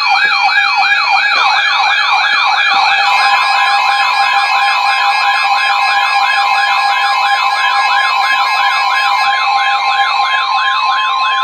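A weather alert radio's warbling siren alarm, sweeping up and down about three times a second. About three seconds in, NOAA Weather Radio's steady warning alarm tone joins it and holds under the siren. Together they signal a new warning coming in.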